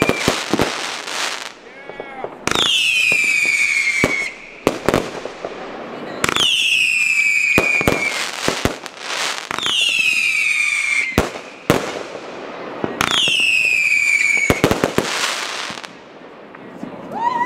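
Fireworks going off: four whistling shots, each a falling whistle about a second and a half long, come roughly every three and a half seconds, with sharp bangs and crackling bursts between them.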